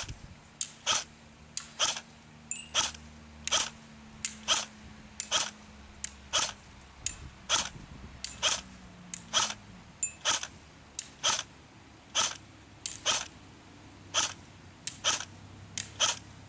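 Cyma AK-47 airsoft electric gun firing single shots on semi-automatic, a sharp crack with each trigger pull, about two a second at an uneven pace.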